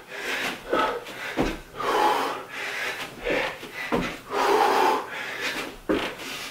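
A man breathing hard through slow burpees, loud exhalations over and over, with a few dull thuds of feet and hands landing on a carpeted floor.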